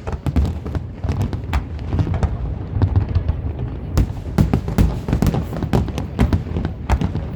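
Fireworks display: a fast, irregular run of sharp cracks and bangs over a steady low rumble, growing denser and louder about halfway through.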